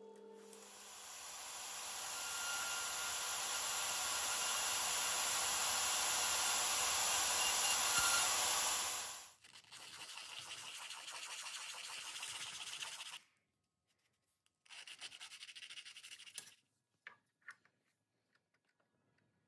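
A loud, steady rushing noise builds up over the first nine seconds and then cuts off sharply. After it, a small brass lamp part is rubbed by hand on a sandpaper disc in two spells of quick scraping strokes, and a couple of small metal clicks follow.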